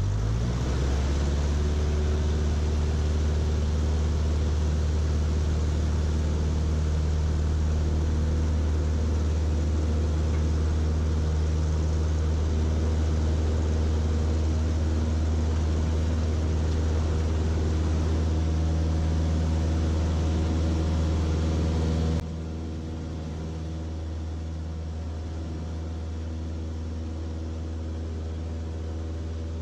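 Cessna 152's four-cylinder Lycoming engine and propeller at full takeoff power, heard from inside the cockpit as a steady drone through the takeoff roll and lift-off. About three quarters of the way through, the whole sound drops abruptly to a quieter, still steady level.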